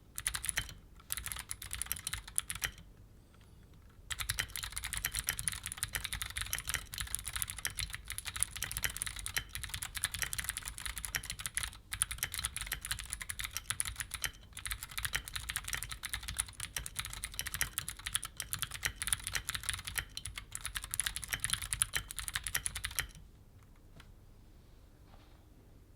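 Typing on a Keychron Q5 aluminium-bodied mechanical keyboard fitted with Gateron G Pro Blue clicky switches. A few short bursts of keystrokes and a pause of about a second, then fast, continuous typing that stops about three seconds before the end.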